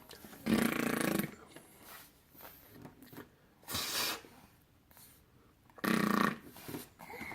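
A person making silly vocal noises: a loud throaty noise about half a second in, a short hissing breath about four seconds in, and another loud throaty noise about six seconds in.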